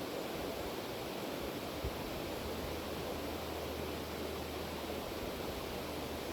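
River water flowing: a steady, even rush of noise.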